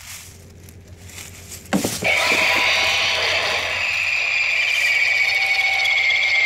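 A click, then an animated giant insect Halloween prop starts a loud, steady, shrill electronic buzz from its speaker, its pitch sinking slightly near the end.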